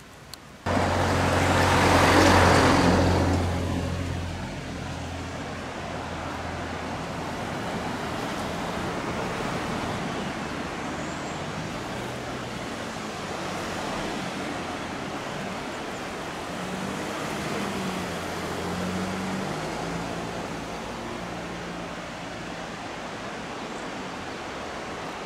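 Diesel railcar KM-101 running, its engine a low steady drone. The drone cuts in abruptly about a second in, under a loud burst of rushing noise that fades over the next three seconds.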